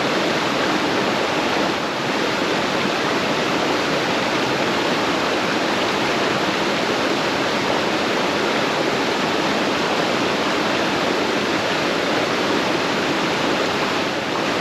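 Small creek rushing over rocks and falls: a steady, loud rush of water.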